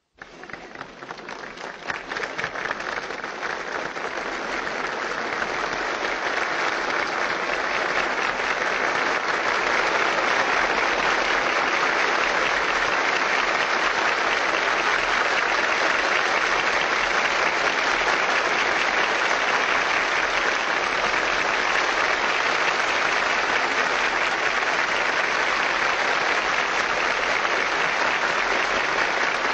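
Large audience applauding, starting suddenly, swelling over the first several seconds and then holding steady.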